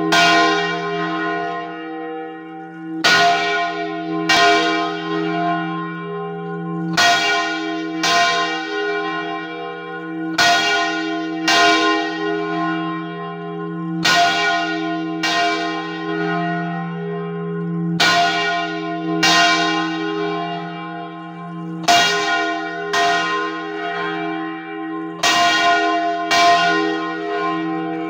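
The Purísima church bell, cast in 2000, swinging full circle on its wooden yoke (Valencian 'vol' ringing) and struck by its clapper. The strokes come mostly in pairs about a second apart, a new pair every three to four seconds, and each stroke rings on into the next. It is rung for a rogation toll (toc de rogativa).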